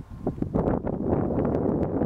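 Wind buffeting the microphone: a gusty low rumble that drops away for a moment at the start, then carries on.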